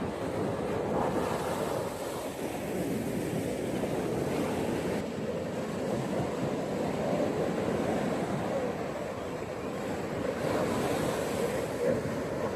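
Gentle ocean waves washing onto a beach in a steady surf hiss. Swells of breaking water come about a second in and again near the end.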